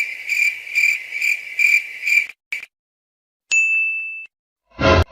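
Cricket-chirping sound effect, a steady chirp repeating about two and a half times a second, the stock comedy cue for an awkward silence; it stops a little over two seconds in. About three and a half seconds in a single bright ding rings out and fades, and a louder, fuller sound starts near the end.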